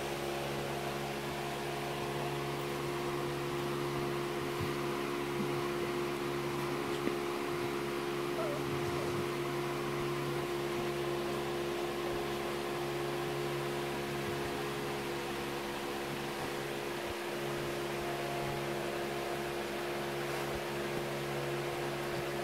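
Steady hum of a running household machine, with several low, constant tones.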